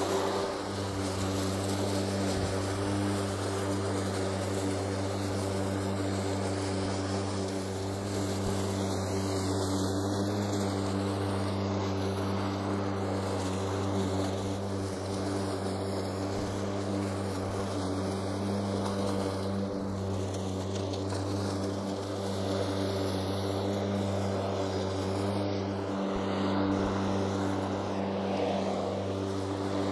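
Stiga Twinclip 950 SQ AE cordless mower running as it cuts grass, its motor and double-layered blade whirring at a steady, constant pitch.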